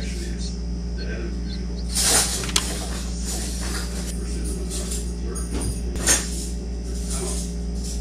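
Garden ambience under a steady low hum, with a few faint high chirps in the first second or so and two short rustling bursts, about two and six seconds in.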